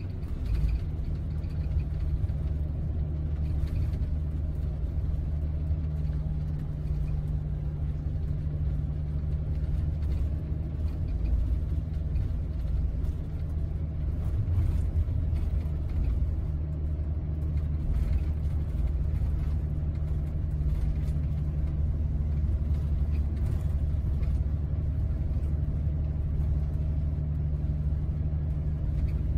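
Cabin noise on the upper deck of a Scania double-decker coach cruising on the highway: a steady low drone of engine and road rumble that stays even throughout.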